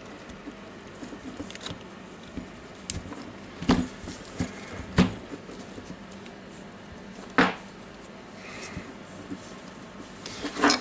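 Sparse clinks and knocks of metal parts being handled and fitted together while the impact wrench's hammer case and internals are reassembled, with three sharper knocks a few seconds apart.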